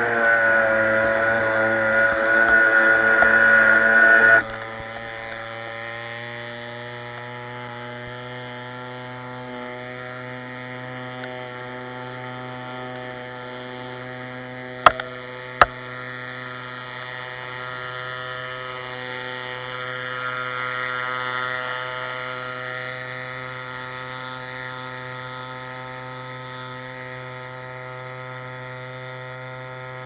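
Motor of a homemade motorized surfboard running steadily under way, a constant buzzing hum with water rushing past. About four seconds in the sound drops suddenly and carries on quieter and steady. Two sharp clicks come midway.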